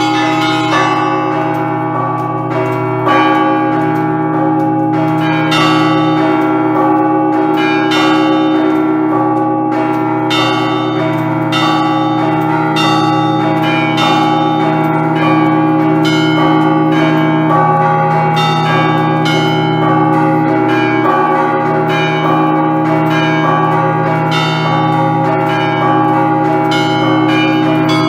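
Russian Orthodox festive bell ringing (prazdnichny zvon) improvised on a set of church bells: quick, rhythmic strikes on the smaller bells over the long, sustained ringing of the larger, lower bells.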